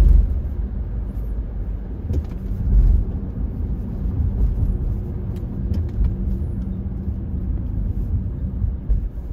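Car driving, heard from inside the cabin: a steady low rumble of road and engine noise, swelling briefly about three seconds in.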